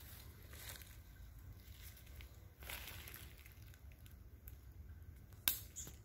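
Faint rustling and crackling over a low steady hum, with a louder hiss of noise about halfway through and a single sharp click near the end.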